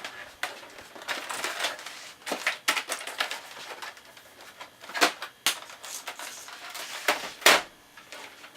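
Handling noise from a computer keyboard and cables being moved about and set down: rustling, scattered clicks and a few sharp knocks, the loudest near the end.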